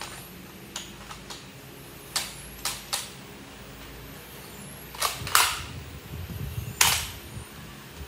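Sharp plastic clicks and clacks of a Nerf Elite 2.0 foam-dart blaster being handled and reloaded, with a few louder clacks past the middle.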